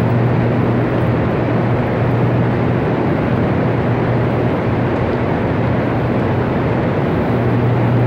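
Steady machinery roar of the Hoover Dam hydroelectric power plant, with a constant low electrical hum under it.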